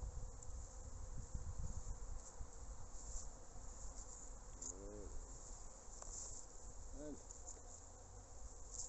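Honeybees buzzing around the hive entrance, with single bees flying close past, their buzz rising then falling in pitch about five seconds in and again about two seconds later.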